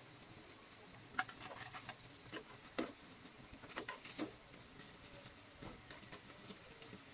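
Breaded luncheon meat slices shallow-frying in oil in a pan, with metal tongs turning them: a faint sizzle with a cluster of irregular sharp crackles and clicks between about one and four and a half seconds in.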